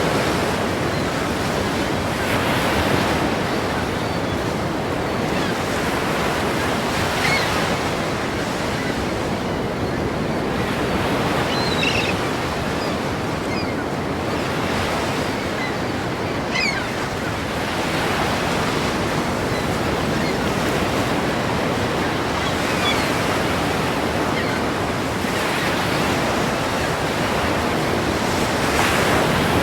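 Ocean waves breaking and washing in continuously, swelling and easing every few seconds, with some wind on the microphone.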